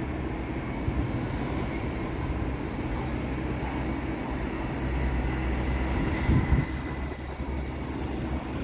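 City traffic at a busy intersection: a steady low rumble of vehicle engines and tyres, with a brief louder burst about six seconds in.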